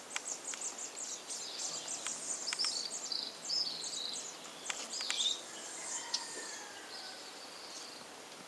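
Birds chirping and twittering in many short, high notes, some sliding down in pitch; busiest through the first five seconds, then thinning out.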